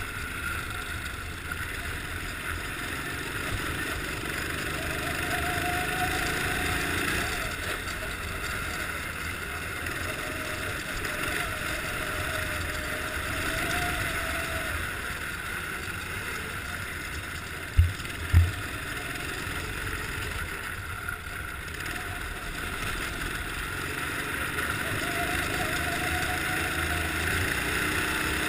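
Kart engine running at racing speed, heard from a camera on the kart, its pitch wavering up and down with the throttle through the corners. Two short thumps about two-thirds of the way through.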